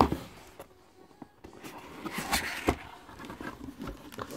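Cardboard box and paper packaging being handled and opened: a sharp knock at the start, then rustling and scraping of cardboard around two seconds in, with a few small taps later.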